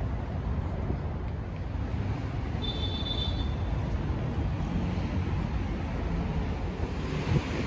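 Steady rumble of road traffic, with a brief high tone about three seconds in.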